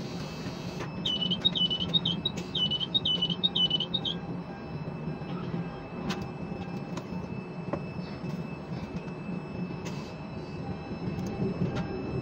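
Quay crane's drive machinery humming steadily as the spreader lands a container on a truck chassis and hoists clear, with a few sharp clicks. About a second in, six short high electronic chirps sound in two sets of three.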